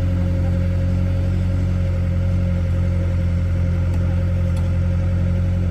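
Heavy diesel engine running steadily at a constant speed, a low even drone with a faint higher hum above it.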